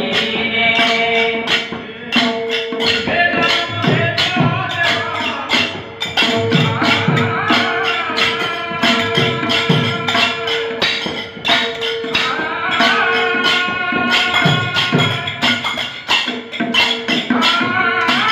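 Devotional bhajan music: a melody instrument over a steady held note, with fast, dense clicks of small hand percussion and low hand-drum strokes that bend in pitch every few seconds.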